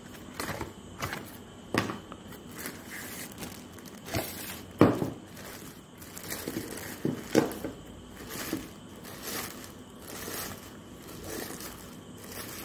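Plastic wrapping and a cardboard box crinkling and rustling as they are handled by hand during unboxing, with a few sharper knocks, the loudest about five seconds in.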